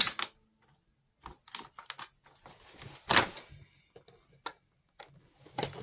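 Screwdriver clicking and scraping on the screws of a suitcase's plastic wheel housing, with the fabric lining rustling as it is held back. Scattered small clicks and a louder scraping rustle about three seconds in.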